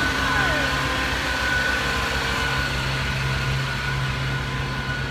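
A motor vehicle engine idling close by: a steady low rumble.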